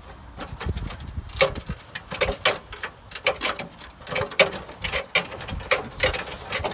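Irregular clicks and knocks of metal being worked by hand on a car body, several a second.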